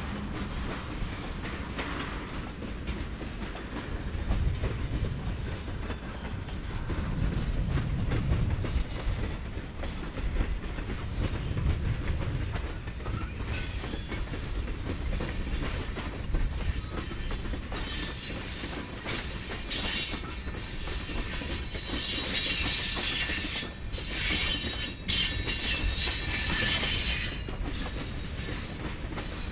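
Freight cars of a manifest train rolling past, a low rumble that swells a few times. About halfway through, a high wheel squeal sets in and keeps on, wavering, until near the end.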